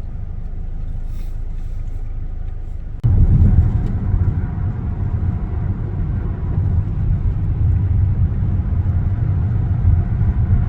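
Steady low road and engine rumble inside a moving car, a Kia Sorento, that jumps abruptly louder about three seconds in.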